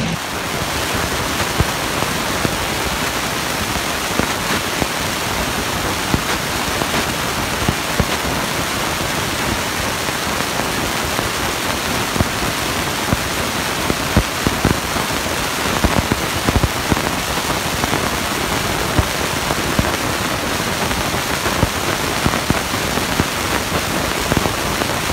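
Loud, steady crackling noise of a monster truck's engine running in an arena, with no clear engine pitch.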